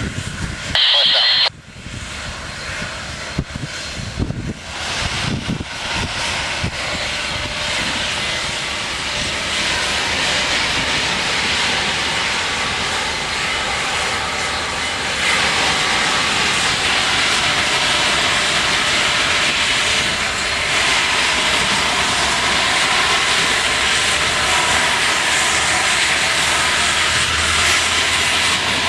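Union Pacific 844, a 4-8-4 Northern steam locomotive, getting under way: a few irregular exhaust beats, then a steady loud rush of steam and exhaust that grows louder about halfway. A brief high tone sounds about a second in.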